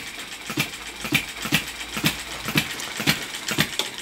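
Model ball-top vertical hit-and-miss engine running, with a regular clacking about twice a second. It is driving a small generator that is lighting two LED bulbs.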